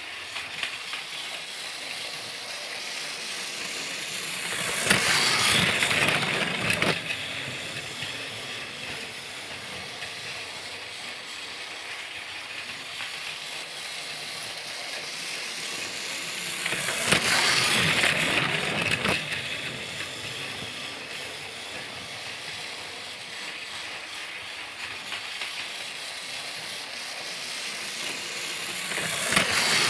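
Motorized Thomas toy train running on its track: a steady mechanical whirr and rattle that swells louder for a couple of seconds about every twelve seconds, as it passes close, about five seconds in, around seventeen seconds and again near the end.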